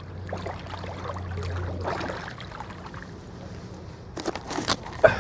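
Shallow lake water sloshing around bare feet wading at the shore, then splashes and drips as a hand scoops up wet mud, ending in a sharp hit just before the end. A low hum sits underneath and fades about two seconds in.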